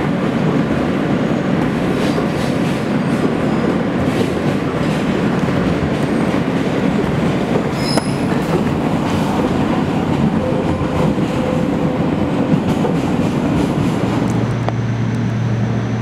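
New York City subway train running on yard track: a steady rumble and clatter of steel wheels over the rails, with a faint wheel squeal a little past the middle. Shortly before the end, a low steady hum takes over.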